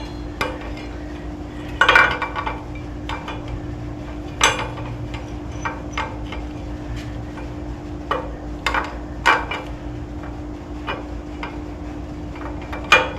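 Scattered metallic clinks and knocks of engine parts and hand tools being handled, with a denser clatter about two seconds in and a sharp knock near the end, over a steady low hum.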